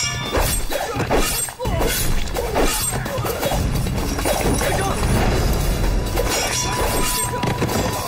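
Fight-scene sound effects of sword clashes and crashes, a series of sharp hits, over background music.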